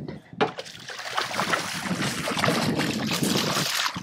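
Water splashing as a hooked striped bass thrashes at the surface and is scooped into a landing net. A sharp knock about half a second in.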